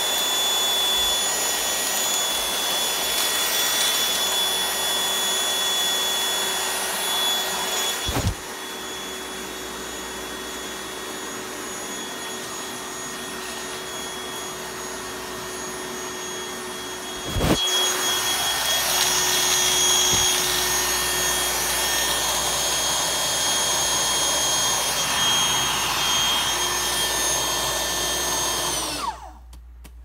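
Cordless stick vacuum's motor running steadily on carpet with a constant high whine, quieter for a stretch in the middle between two sharp knocks. Near the end the motor winds down in pitch and stops: the cordless vacuum has died mid-clean.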